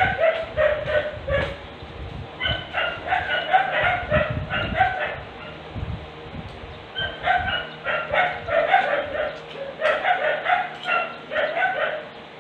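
A dog barking in quick runs of short barks, in four bouts with pauses between them.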